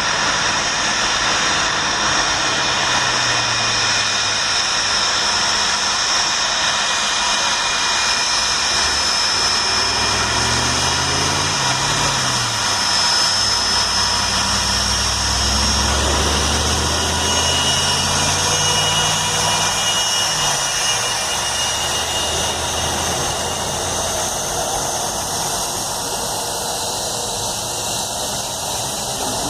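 Jet aircraft engines running with a steady high whine. A deeper rumble swells and then fades in the middle.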